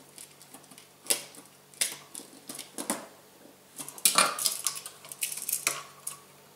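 Clicks, scrapes and small rattles of a plastic Bryant USB charger duplex receptacle and its stiff house wires being handled and fitted. The loudest cluster of clicks comes about four seconds in.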